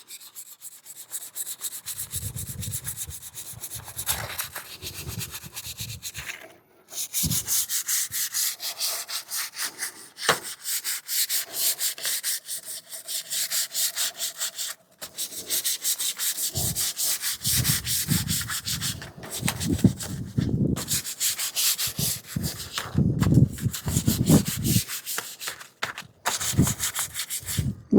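Sandpaper being rubbed by hand over a painted door in quick back-and-forth strokes, a light sand between top coats to knock off whiskers, including along the edges. The strokes pause briefly a few times, and some stretches carry a heavier, duller rub.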